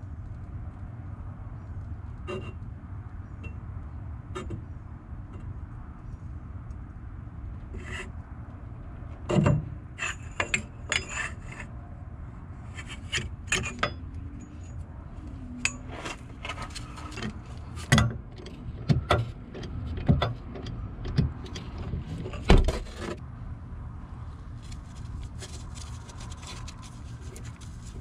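Hand tools clicking, scraping and knocking on metal at a steering box's pitman arm, in scattered irregular strikes with one sharp knock near the end, over a steady low hum.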